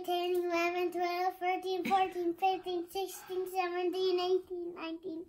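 A young child's voice chanting on one steady note, syllable after syllable with short breaks, in a sing-song monotone.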